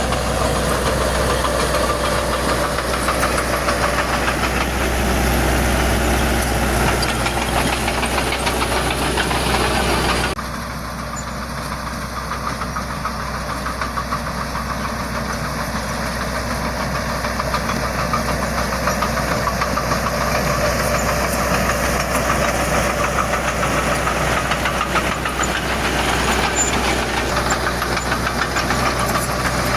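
Diesel engine of heavy earthmoving machinery running steadily under work, with a fast even beat; the sound changes abruptly and drops a little in level about ten seconds in.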